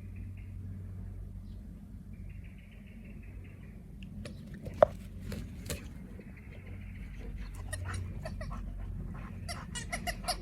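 Squeaky ball squeaking as a young boxer dog chews it: a few drawn-out squeals, then runs of short, quick squeaks, one much louder than the rest about five seconds in.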